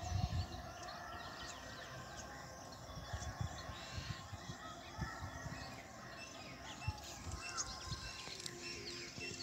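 Many small birds chirping and calling, with occasional low thumps of wind or handling on the microphone.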